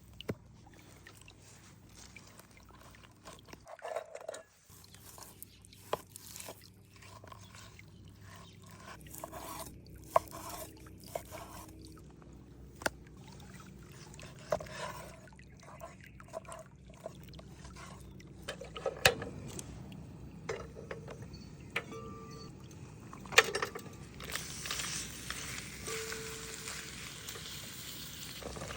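Cooking sounds: scattered knocks and clinks of utensils and cookware, with liquid pouring. A steadier hiss sets in about three-quarters of the way through.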